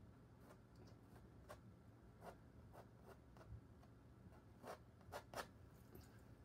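Faint scrapes of a palette knife pulling oil paint across a stretched canvas: a string of short strokes, the loudest three close together near the end.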